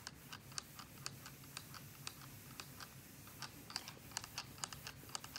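A steam iron slid back and forth over fabric on a tabletop, with faint irregular light clicks and taps, a few a second, as it moves. It is fusing iron-on interfacing to the back of the fabric, with no steam.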